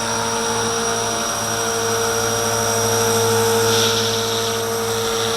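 Walkera V450D01 collective-pitch RC helicopter hovering: the steady whine of its electric motor and the drone of the main rotor, with a slight swell in level about halfway through.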